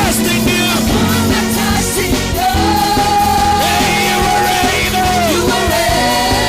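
Live worship music: a full band with drums, with singers holding long, gliding notes.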